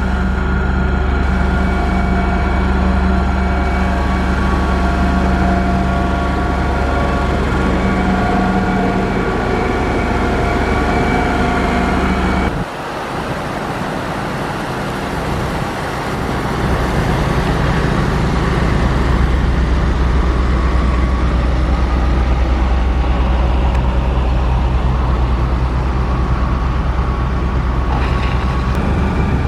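Heavy diesel engine of road-construction machinery running steadily, with several steady whining tones over a deep engine note. About twelve seconds in it changes abruptly to a quieter, rougher engine sound that grows louder again a few seconds later.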